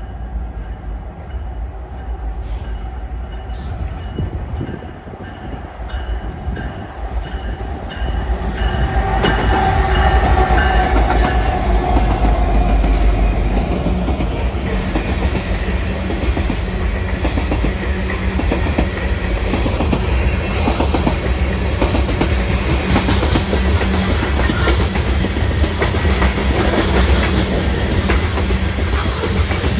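A train passing close by on the tracks: it grows louder over the first eight seconds or so, then runs loud and steady with the clatter of its wheels on the rails.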